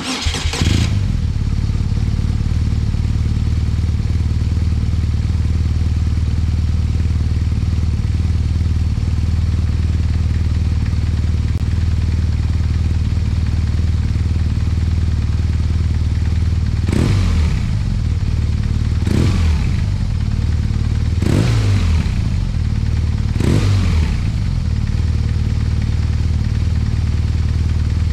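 BMW R1200RT's horizontally opposed twin-cylinder engine, breathing through the factory Akrapovič silencer, starting up and settling into a steady idle. In the second half it is revved four times, about two seconds apart, each blip rising quickly and dropping back to idle.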